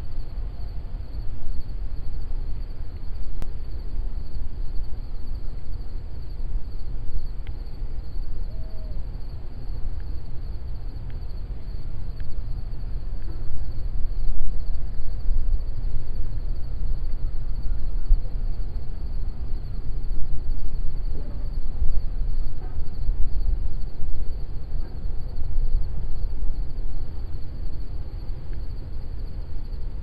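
A steady insect chorus, a constant high buzz, over a loud low rumble that rises and falls.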